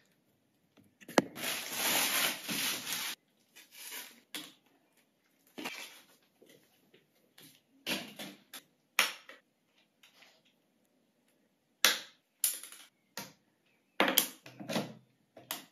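Handling noise from unpacking and setting up a Canon EOS 6D Mark II camera: a rustle of packaging lasting about two seconds soon after the start, then a series of sharp clicks and knocks as the camera body and its small plastic parts are handled.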